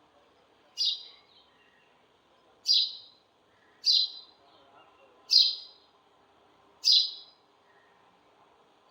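Sparrow chirping: five loud, short chirps, each dropping quickly in pitch, about one to one and a half seconds apart.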